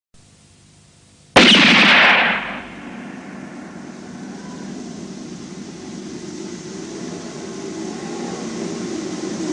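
A sudden loud bang about a second and a half in, dying away over about a second. It is followed by a low rushing rumble that slowly grows louder.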